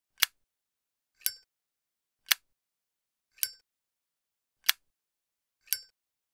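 A flip-top metal lighter's lid being flicked open and snapped shut over and over, about one click a second. The clicks alternate between a ringing metallic clink and a sharper, drier snap.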